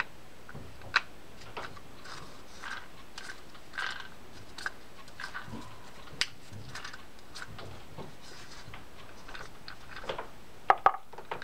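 Scattered small clicks and taps of a South Bend Condor spinning reel's plastic body and parts being handled and turned over, with a quick run of sharper clicks near the end.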